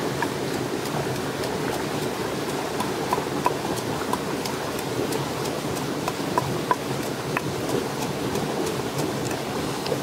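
Wooden pestle pounding in a stone mortar, making light, irregular knocks over a steady rushing background noise.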